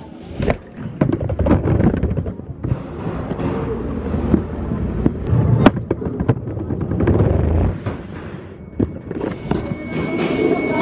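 Handling noise from a handheld camera jostled against cloth and a bag: irregular knocks, bumps and rustles, with a heavier low rumble about halfway through. A faint steady high tone comes in near the end.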